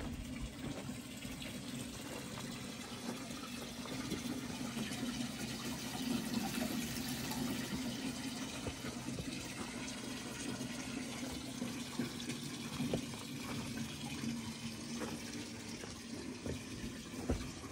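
Water running from a garden hose into a wooden cedar hot tub as it fills: a steady splashing hiss onto the wet wooden floor, with a low steady hum underneath.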